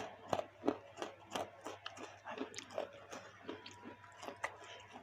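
Close-up chewing of baso aci, tapioca-starch meatballs, with mouth clicks about two to three a second, softer after the first couple of seconds.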